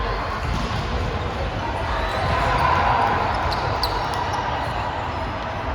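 Volleyball being played in an echoing gym: a ball being hit and bouncing, with voices in the background.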